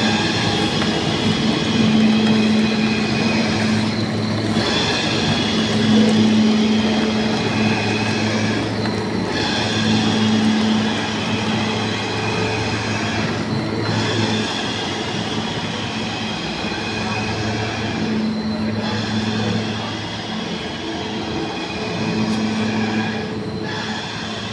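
Pipe-production line machinery running steadily: a constant low hum under a loud hissing clatter. The upper hiss dips briefly about every four to five seconds.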